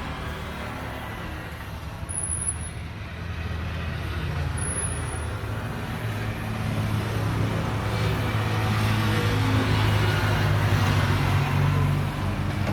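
A motor vehicle engine running with a steady low hum, growing louder over the second half.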